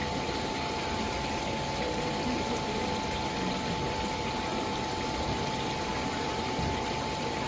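Water fountain running: a steady rush of falling, splashing water, with a faint steady hum underneath.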